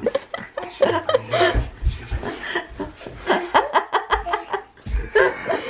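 A woman and a baby laughing together, with a few dull low thumps in the middle and near the end.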